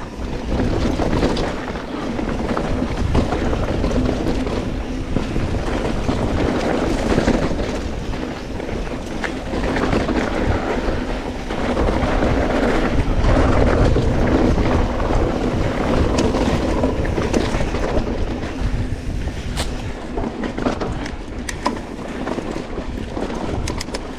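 Steady wind rush on the microphone while a mountain bike rolls fast down a dirt trail, with the tyres rumbling over the dirt. Occasional sharp clicks and rattles from the bike come through, more of them near the end.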